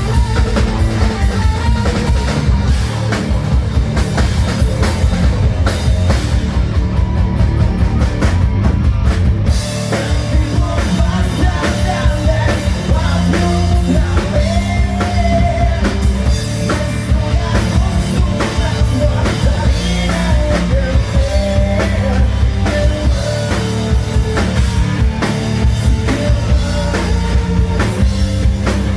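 A hard rock band playing live and loud, with a drum kit and electric guitars.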